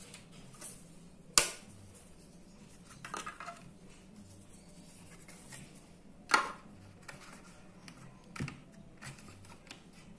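Dry lasagna sheets being laid and pushed into place in an aluminium baking pan: a few sharp clicks and taps of stiff pasta against pasta and the metal, the loudest about one and a half seconds in and again about six seconds in, with fainter rustling between.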